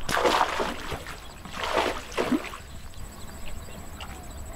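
Splashing and sloshing of shallow pond water, in two bursts about a second apart, as the water is disturbed by hand at the edge.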